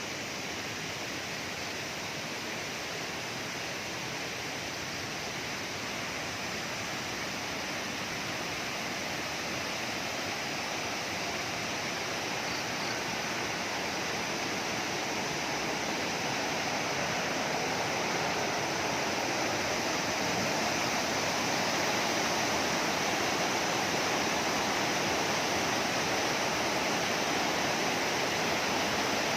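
River water rushing over rocks in a steady noise that grows gradually louder.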